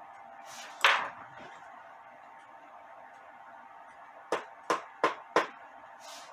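One loud sharp knock, then four quick sharp knocks about a third of a second apart near the end, as hard clock parts are handled. A faint steady hum runs underneath.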